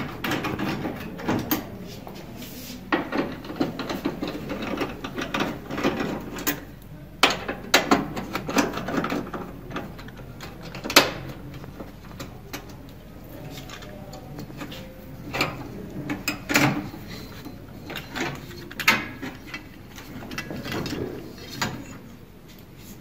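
Washing machine being taken apart by hand: a screwdriver working out screws and plastic and sheet-metal parts being handled and lifted off, giving an irregular run of clicks, knocks and rattles.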